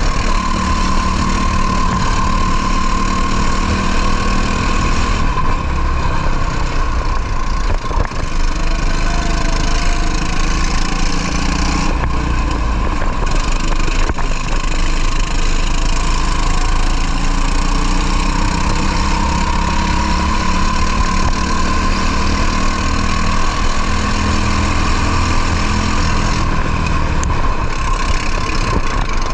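Racing kart's two-stroke engine running hard at high revs, heard onboard, its pitch dipping and climbing again as the kart brakes and accelerates through corners.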